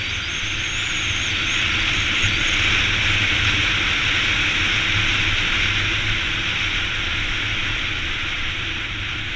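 A 2014 Yamaha XT250's single-cylinder four-stroke engine running steadily while riding at low road speed, with a loud rush of wind over the microphone.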